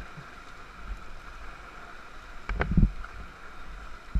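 Steady wash of river water against a paddle raft on a calm stretch, with one brief thump about three seconds in.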